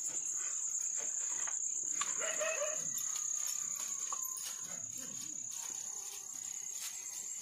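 Crickets trilling in one steady, unbroken high note, with faint voices in the background.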